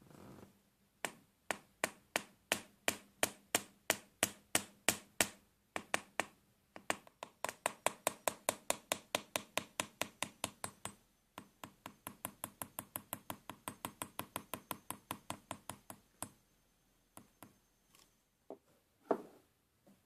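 Series of sharp, evenly spaced metallic clicks from a VW T4 door lock mechanism as a thin wire is worked through it. The clicks come about three a second, then quicker, about four to five a second, with short pauses between runs. A few scattered knocks follow near the end.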